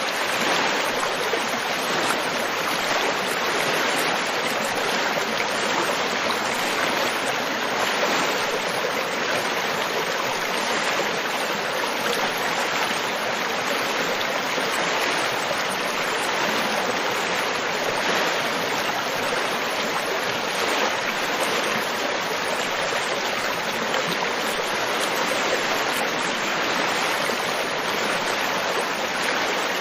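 River water flowing over stones: a steady, even rushing and babbling.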